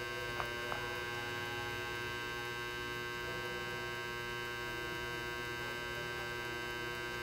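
Steady electrical mains hum made of many steady tones. Two faint small clicks come within the first second as a watch strap is worked onto the case lugs.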